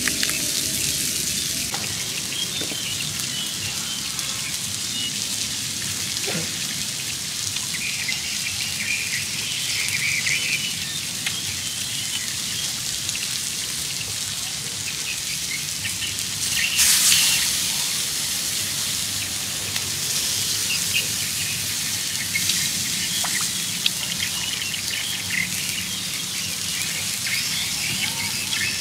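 Steady sizzling hiss with scattered crackles from beef cooking on a hot stone slab over a wood fire, with birds chirping now and then. The hiss swells briefly about two-thirds of the way through.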